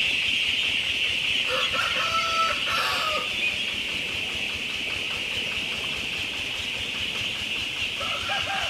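A large flock of ducklings peeping all together in a dense, steady chorus. A separate, lower call stands out over it briefly about two seconds in and again near the end.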